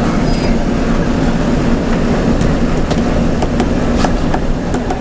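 Front-engined bus driving along, heard from the cab up by the windscreen: a steady engine drone with road noise. A scattering of light ticks or rattles comes in from about halfway.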